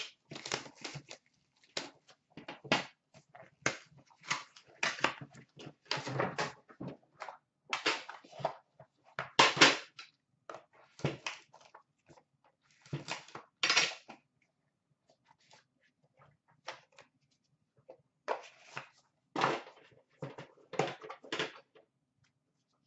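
Plastic shrink wrap crinkling and tearing, with cardboard and packaging handling, as a sealed hockey card box is unwrapped and opened. The irregular rustles and clicks are dense at first and grow sparser about halfway through.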